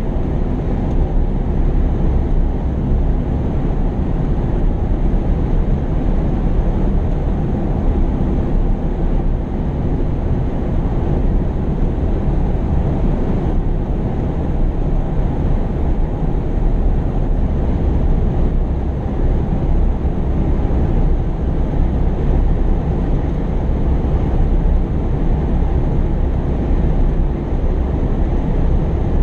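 Heavy earthmoving machinery running: a steady, unbroken low engine rumble.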